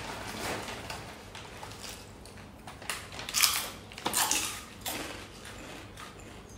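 Eating at a laden table: short crunching and rustling noises with light clinks of dishes, the loudest two about three and a half and four seconds in.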